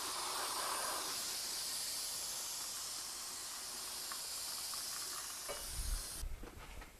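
Aerosol brake cleaner spraying in a steady hiss onto a drum brake assembly, cutting off suddenly near the end. A few low bumps and knocks come just before it stops.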